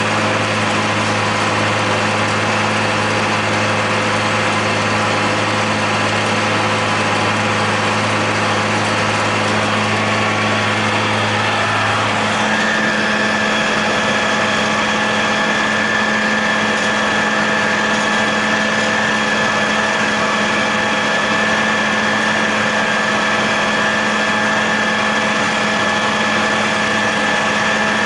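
John Deere 8100 tractor's six-cylinder diesel running steadily while pulling a John Deere 946 MoCo discbine through standing hay, heard from inside the cab. About twelve seconds in, the low hum drops away and a steady high whine comes in.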